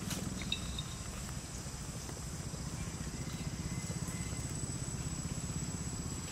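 A motor running steadily, a low rumble with a fine fast pulse, under a thin steady high whine; a couple of faint clicks near the start.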